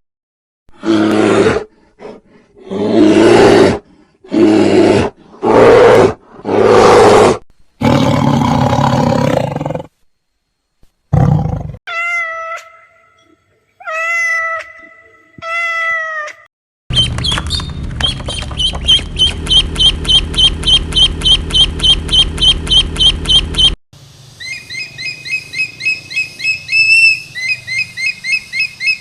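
A series of different animal calls. First come about six loud, harsh roaring calls. Then three drawn-out pitched calls, then a fast, steady pulsing call for several seconds, and last a run of quick repeated chirps.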